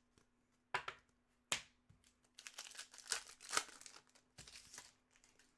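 A trading-card pack's plastic foil wrapper crinkling and tearing as it is handled and opened. There are two sharp crackles within the first two seconds, then a longer run of crinkling through the middle.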